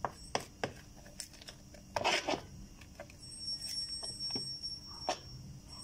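Metal spoon stirring thick coconut cake batter in a mixing bowl: scattered clicks and taps of the spoon against the bowl, with a louder wet scrape about two seconds in.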